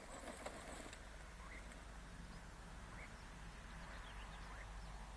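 Faint short bird chirps, scattered about once a second, over a low steady background hum.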